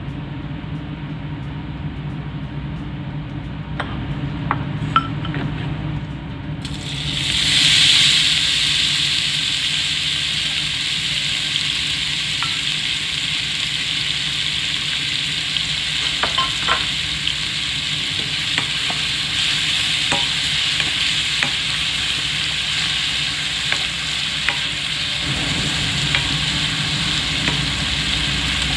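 Ground beef frying in hot oil in a nonstick wok: a loud sizzle starts suddenly about seven seconds in and keeps going steadily. Clicks and scrapes of a plastic slotted spatula stirring the meat come through it, over a steady low hum.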